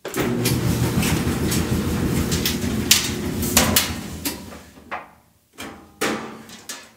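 Clothes dryer running: a steady low motor hum with knocks from the tumbling drum, which winds down from about three and a half seconds in, followed by a short clunk near the end.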